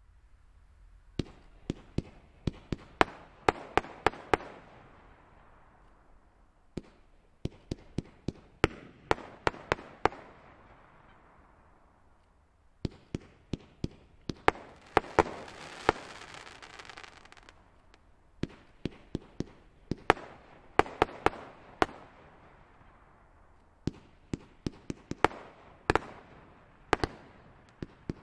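WECO Bandit 35-shot fireworks battery (cake) firing large-calibre bombette shells in volleys. Sharp bangs come in quick clusters of several shots, five clusters with short pauses between them, each trailed by a hiss.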